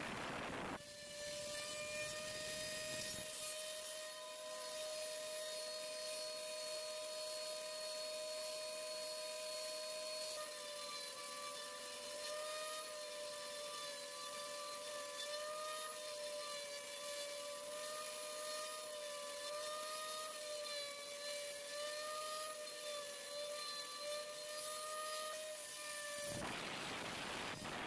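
CNC router spindle running with a steady high-pitched whine while it cuts an MDF board; the pitch wavers slightly as the cutting load changes. A short burst of broader noise comes near the end.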